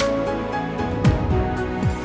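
Background music with a steady beat: sustained pitched chords over a deep, falling kick drum and sharp percussion hits about once a second.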